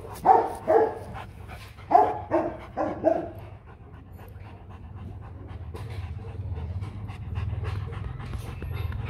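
A Rottweiler panting steadily. Six short bark-like dog calls come in two quick groups, one right at the start and one about two to three seconds in.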